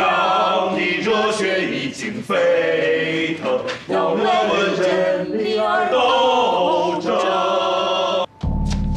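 A choir singing in chorus, cutting off abruptly a little over eight seconds in; instrumental music with a held bell-like ringing tone follows.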